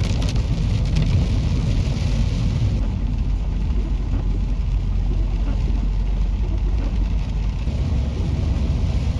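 Car interior noise while driving in heavy rain: a steady low road rumble under the hiss of rain and spray on the windshield. The hiss is brighter for the first few seconds, then eases.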